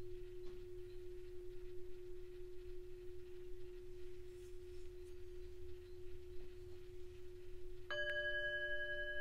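A Tibetan singing bowl's low tone rings on steadily; near the end a small hand-held singing bowl is struck once with a wooden mallet and rings out with a brighter, higher chord of tones over it.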